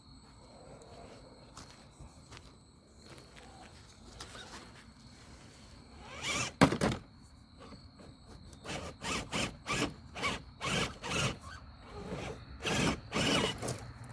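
Radio-controlled scale crawler truck driven in short stop-and-go throttle pulses: a dozen or so brief raspy whirring bursts from its motor and drivetrain, starting about halfway through, with one louder burst just before them.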